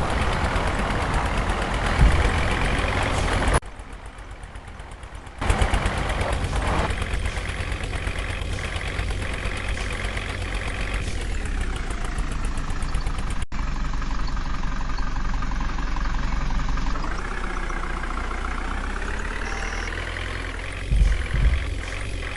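Heavy diesel engine running, its pitch rising and falling as it is revved. There is a short, much quieter stretch about four seconds in.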